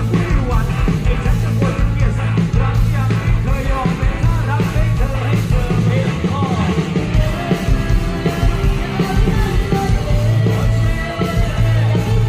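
Live Thai ramwong band music played loud, with a heavy drum and bass beat under electric instruments and a singing voice.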